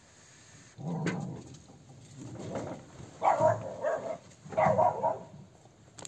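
A dog barking in about four bursts, alerting to something outside.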